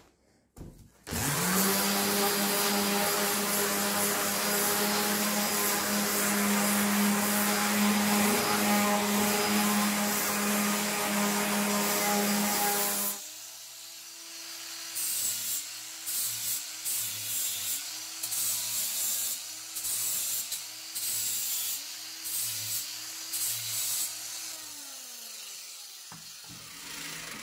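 Angle grinder running at full speed with a steady whine and heavy grinding hiss on a steel bolt held in a bench vise. About halfway it cuts off suddenly, then quieter on-and-off grinding follows, the motor pitch dipping and recovering again and again as it loads up, before fading near the end.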